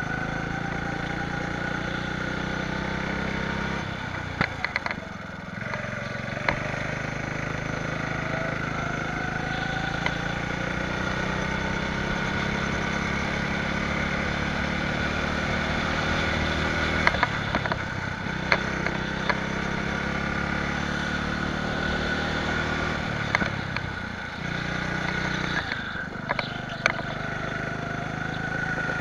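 Go-kart engine running hard, its pitch repeatedly climbing as it revs up and then dropping off as it comes off the throttle, with a few short, sharp knocks.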